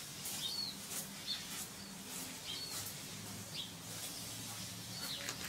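Birds chirping: short, high calls every half second to a second over a faint steady hum.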